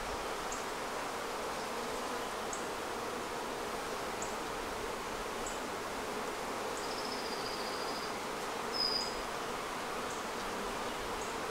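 Honeybee colony in an open hive humming steadily, an even drone with no rise or break. The beekeeper takes this calm as a sign the bees are accepting a newly introduced queen. A brief high whistle comes about seven seconds in, and a sharper high chirp about nine seconds in.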